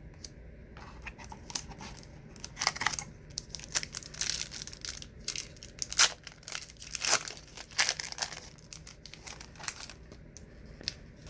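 A trading card pack wrapper being torn open and crinkled by hand: a run of crackling, rustling tears lasting several seconds.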